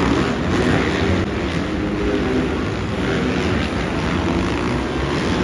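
Several motocross dirt bikes racing together on a dirt track, their engines blending into one steady mix of engine noise.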